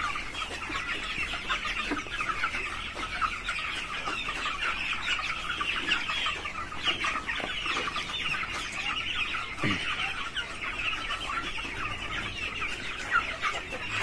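A flock of several hundred young broiler chickens in a shed, calling all together in a dense, steady chorus of peeps and clucks.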